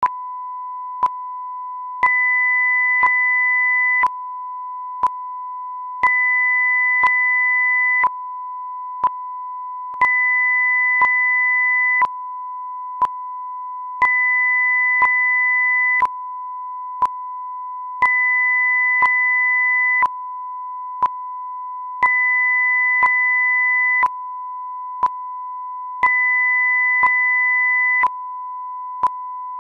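Electronic sync-test signal: a steady pure tone with a short click once every second. A second tone an octave higher joins for two seconds out of every four. The once-a-second clicks are the timing marks used to check that sound lines up with picture.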